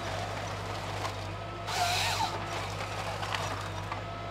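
Malwa 560H harvester's engine running steadily, with the Log Max 928 harvester head's hydraulic chain saw cutting through the log once about two seconds in, a short harsh buzz with a wavering whine lasting under a second; the next cut begins right at the end.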